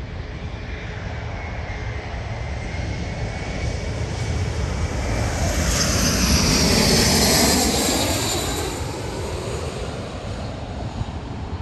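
Boeing 767-300ER's twin turbofan engines at takeoff power as it climbs out, swelling to a peak about seven seconds in and then fading. A whine drops in pitch as it passes.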